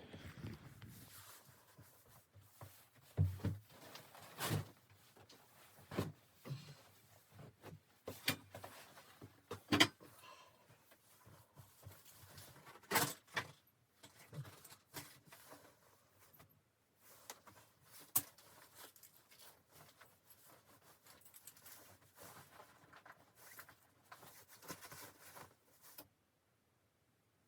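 Irregular light knocks and clicks over faint rustling, a dozen or so sharp hits spread unevenly, then a sudden cut to silence near the end.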